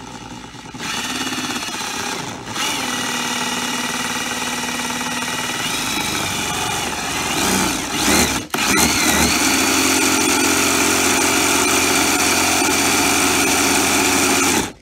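Old Yamaha electric trolling motor running on the bench with no load, its electric motor whining and the plastic propeller spinning freely in the air. It steps up in speed twice in the first few seconds, wavers and briefly drops about eight and a half seconds in, then runs loudest and steady until it cuts off near the end.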